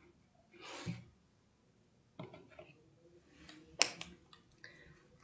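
Faint clicks and taps of paint pots and a brush being handled at a painting table, with a short soft hiss just under a second in and one sharp click about four seconds in.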